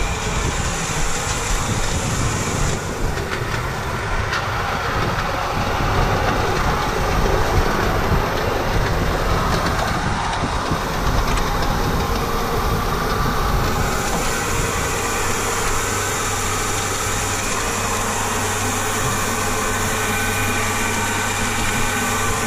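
Massey Ferguson 399 tractor's six-cylinder diesel running, heard from inside the cab, a loud steady noise that settles into a steadier low hum a little past halfway through.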